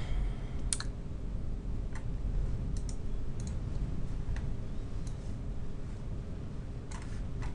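A few light clicks at irregular intervals over a steady low hum.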